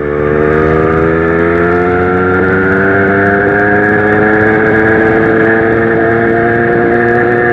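Zanella 70cc two-stroke moped engine under way, its pitch climbing slowly and steadily as it picks up speed.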